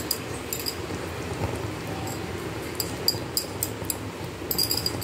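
Egg gravy simmering in a steel pot, bubbling with scattered small pops over a steady low hiss.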